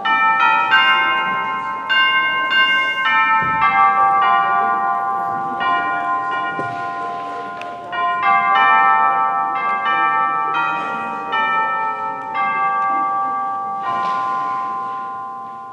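Bells ringing a tune: notes struck one after another in quick succession, each left to ring on over the next, fading out in the last couple of seconds.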